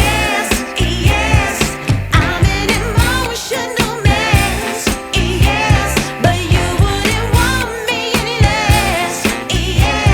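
Pop song playing as background music: a singer's vibrato-laden voice over a steady beat.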